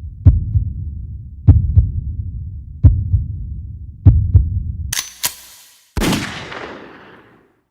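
Heartbeat sound effect: low double thumps about every 1.3 seconds, four times. Near the end they give way to a sharp bright hit and then a noisy crash that fades over about a second and a half.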